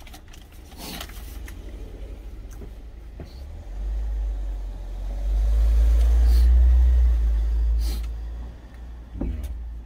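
A vehicle passing close by: a low rumble that builds from about three and a half seconds in, peaks, and fades away near the end. A couple of light clicks are heard.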